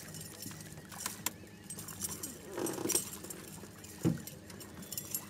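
Light clicks and rattling of fishing tackle being handled in an aluminium boat, with a short rushing noise about two and a half seconds in and one dull knock about four seconds in.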